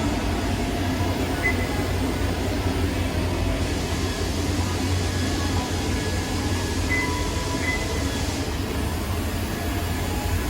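DMG Mori Seiki NHX4000 horizontal machining center running with a steady low hum. A higher hiss rises for several seconds in the middle, and there are a few short, high chirps.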